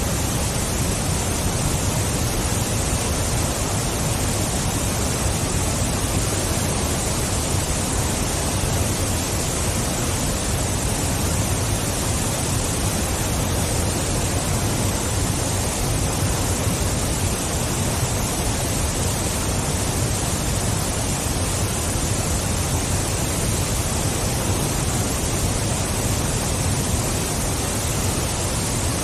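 Waterfall rushing steadily, an even wash of falling water with no change in level.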